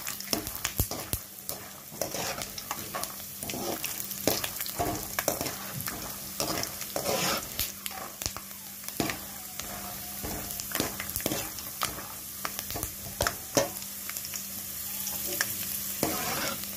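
Peanuts sizzling in hot oil in a metal kadai as they are stirred with a wire-mesh skimmer, with frequent scrapes and clinks of the skimmer against the pan over a steady frying hiss.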